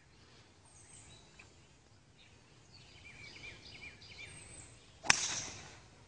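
A golf club strikes a teed-up ball about five seconds in: one sharp, loud crack with a short ringing tail. Before it, a small bird chirps a quick series of notes.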